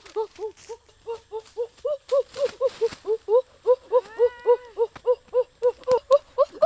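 An animal calling in a rapid, even series of short chirping notes, about four a second, with one longer, higher gliding note about four seconds in.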